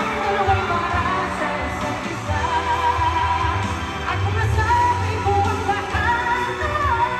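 Live pop song: a singer's held, gliding melody over a band with a steady bass, heard through an arena sound system from among the audience.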